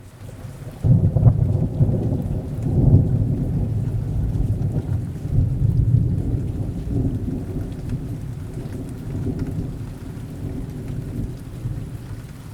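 Steady rain with a long roll of thunder that swells about a second in, rumbles on and slowly fades.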